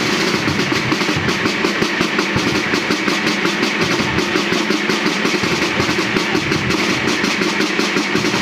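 Marching drum band of snare drums and bass drums playing together: a loud, fast, even drumbeat of closely spaced strokes.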